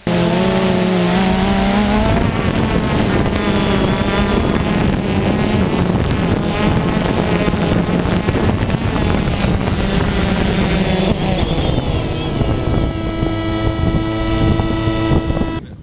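A motor vehicle's engine running loudly, its pitch rising and falling as it revs, and holding steady near the end.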